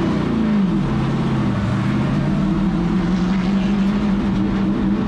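Race car V8 engine heard from inside the cockpit, its revs dropping over the first second and a half, then picking up again and holding steady.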